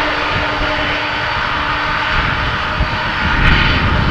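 Jet engines of a Boeing 747-400F freighter running as the aircraft rolls along the runway: a loud, steady rush with a high whine over it, swelling briefly near the end.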